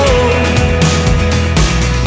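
Background rock music with drums and bass and a held vocal note.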